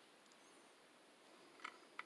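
Near silence: room tone, with two faint, short clicks near the end.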